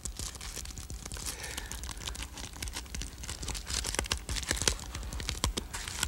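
Wax paper crinkling and crackling as it is handled on the end of a paper-towel-tube kazoo, with many small, irregular clicks.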